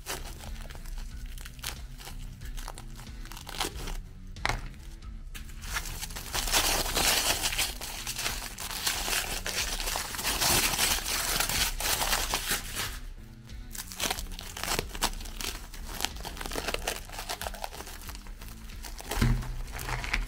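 Hands crinkling and peeling plastic cling film and aluminium foil off a roll of cookies. The crinkling is loudest for about seven seconds in the middle, while the foil is being pulled open, with background music underneath.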